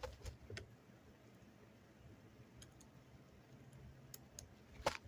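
Scattered small clicks and light taps from handling a screwdriver and small parts on an RC car, with a cluster at the start and the loudest click near the end.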